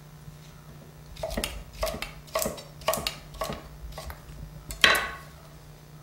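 Kitchen knife chopping green and yellow squash on a wooden cutting board: a run of sharp knife strikes on the board, about two a second, then a louder knock about five seconds in.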